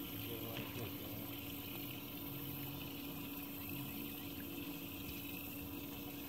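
A small motor aboard a bass boat humming steadily, with water moving alongside. The hum holds one pitch and level throughout.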